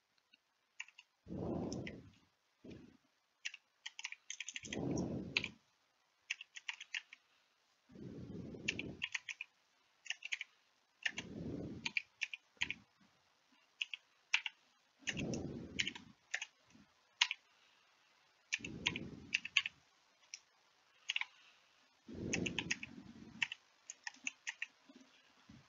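Typing on a computer keyboard, in short irregular runs of key clicks. Seven low, muffled puffs of about a second each recur roughly every three and a half seconds and are the loudest thing heard.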